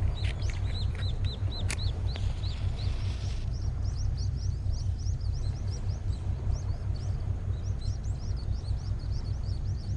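Small birds chirping in quick, repeated high notes, with the pitch of the chirping shifting higher about a third of the way in. Under it runs a steady low rumble.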